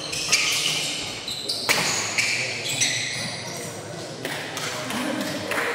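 Badminton rally: sharp racket strikes on the shuttlecock about every second and a half, with sneakers squeaking on the court floor between them.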